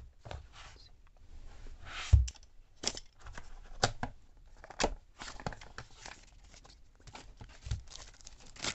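Cardboard retail box being opened by hand: flaps and tabs pulled apart with sharp clicks and scrapes, a louder thump about two seconds in. Near the end comes the crinkle of the white wrapping sheet around the soap dispenser.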